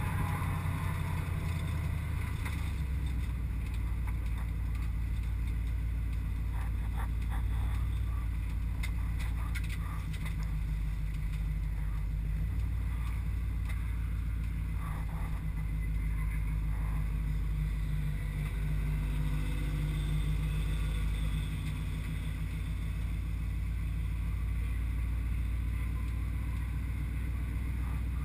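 Mercedes 560SEL's 5.6-litre V8 running steadily at low revs, heard from inside the race car's cabin as an even low drone. A few light clicks and rattles come about six to ten seconds in.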